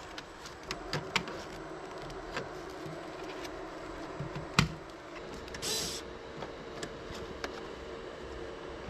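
Scattered clicks and knocks of parts being handled as an air conditioner indoor unit is taken apart, with one louder knock about four and a half seconds in and a short hiss about a second later.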